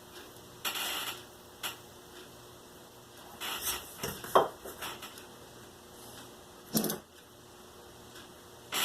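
Hand-work noises at a crafting table: a handful of short scrapes and clatters as tools and cardboard pieces are handled and set down, with one sharper clack about four seconds in.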